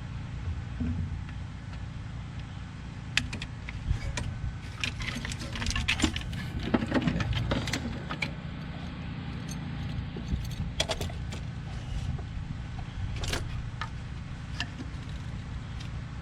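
Scattered metallic clinks, rattles and light clanks of hand tools and engine parts being handled, busiest a few seconds in, over a steady low background rumble.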